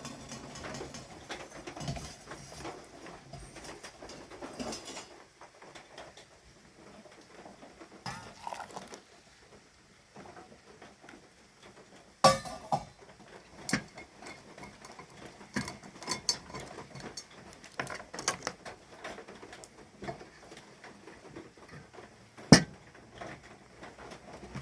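Rain pattering, with scattered clinks and knocks of camp cookware being handled; two sharper knocks stand out, one about halfway through and one near the end.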